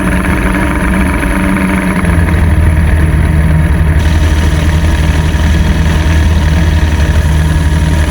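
A boat motor running steadily. About two seconds in, its note drops slightly and grows louder.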